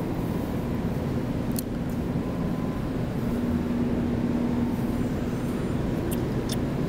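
Steady mechanical hum of a claw machine with a drone that swells for a second or so around the middle, as the claw gantry's motor runs, and a couple of faint clicks.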